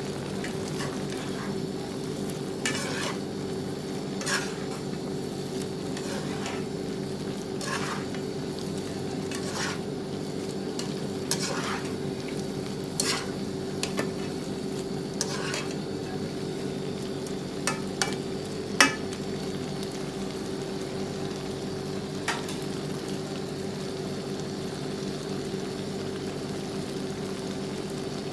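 Shrimp and garlic frying in a pan, being stirred with a spatula: a steady sizzle with a low hum under it, and the spatula knocking and scraping against the pan every second or two, the loudest knock a little before two-thirds of the way through. The knocks stop well before the end.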